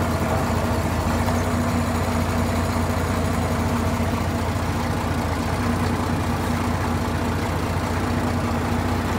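Compact tractor's diesel engine idling steadily, with an even low drone.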